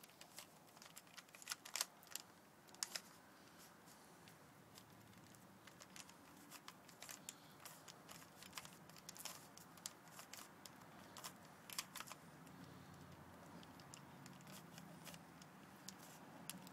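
Plastic Rubik's cube layers clicking and clacking as they are twisted quickly by hand, in faint irregular runs of clicks.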